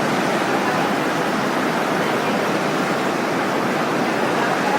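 Heavy storm rain falling, a steady even hiss.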